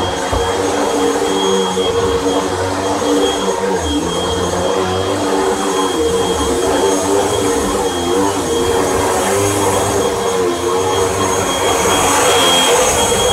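Hoover WindTunnel Rewind bagless upright vacuum cleaner running steadily on a rug, a loud motor rush with a high whine whose pitch wavers slightly as it is pushed back and forth.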